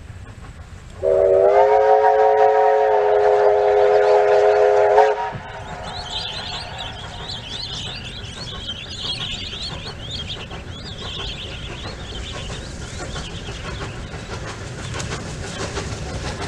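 Whistle of a Victorian Railways J class steam locomotive: one long blast of about four seconds, several tones sounding together, starting about a second in. It is followed by the steady low rumble of the approaching steam train.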